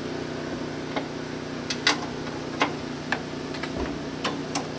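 Several scattered, sharp metallic clicks and clinks of a wrench and bolts knocking against a gas grill's steel cook box as the burner tube mounting bolts are fitted. A steady low hum runs underneath.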